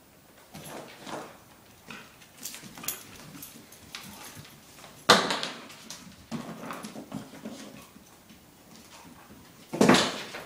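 Airedale terrier running and scrabbling on a hardwood floor: claws skittering and paws thudding, with knocks as it bumps into things. There are two loud sharp knocks, one about five seconds in and one near the end.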